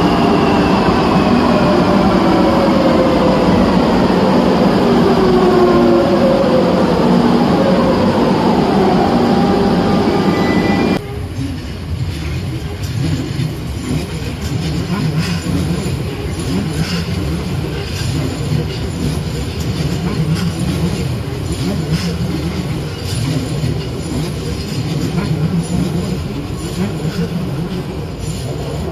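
Madrid Metro electric train braking: several traction-motor whines fall steadily in pitch for about ten seconds. It then cuts off suddenly to a quieter low rumble with scattered clicks.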